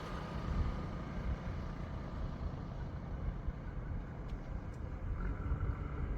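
Heavy diesel engine of a backhoe loader or farm tractor running steadily at low revs, with a faint higher whine coming in about five seconds in.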